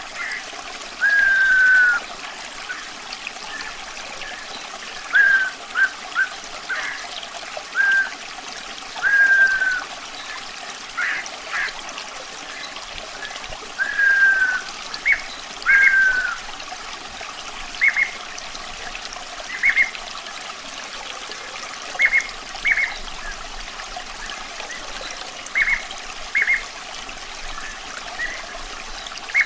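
A songbird whistling over steadily trickling running water. It gives slightly falling whistled notes and short chirps every second or two.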